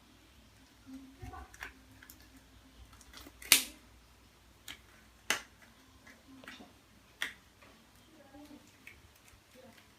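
Medical equipment being handled and set down: a handful of separate sharp clicks and knocks, the loudest about three and a half seconds in.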